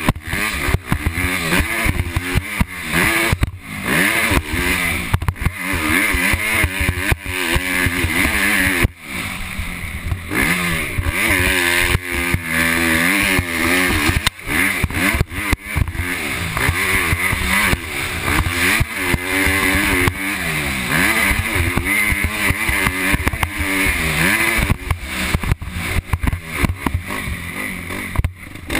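Motocross bike engine ridden hard, its revs climbing and dropping again and again through the gears. Wind and rough knocks buffet the helmet-mounted camera's microphone.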